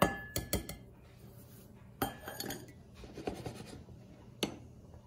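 Metal tablespoon clinking against ceramic mugs, and the mugs knocking on the countertop as they are handled: a string of sharp clinks, a couple of them ringing briefly, near the start and about two seconds in.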